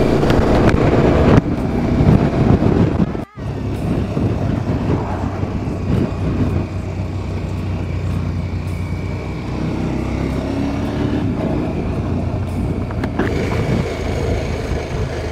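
Motorcycle engine running steadily at road speed, with wind noise buffeting the microphone. The sound cuts out briefly about three seconds in.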